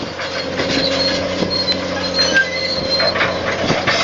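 Excavator engine running steadily under work, with short high-pitched metallic squeals and scattered knocks as it handles stone on the flatbed.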